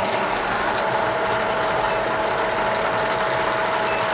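Model 675 milling machine running steadily, its spindle and gear drive giving a constant mechanical noise with a steady whine.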